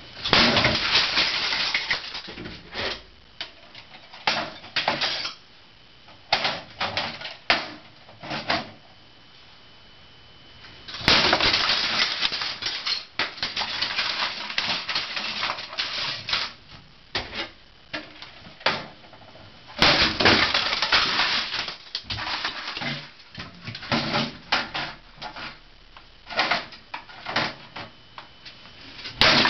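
A hammer striking and crushing hard plastic items such as discs, cases and tapes: repeated blows with cracking, crunching plastic. The sound comes in several spells of rapid crunching, the longest in the middle, with single knocks in the gaps between.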